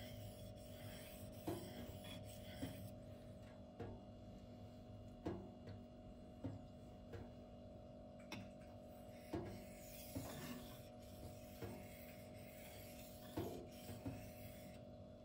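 Steel knife blade being stroked across a waterstone, soft scraping strokes coming irregularly about once a second. A faint steady tone sits under them throughout.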